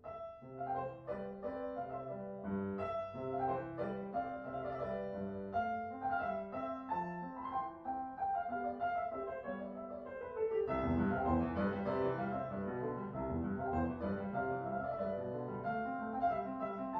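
Background piano music, a melody over moving lower notes, growing fuller and richer in the bass about two-thirds of the way through.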